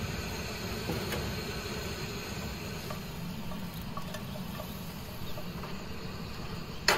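Breakfast vegetables cooking in a nonstick pan: a steady low rush with a faint sizzle and a few light ticks. Near the end comes a sudden loud burst of crackling sizzle.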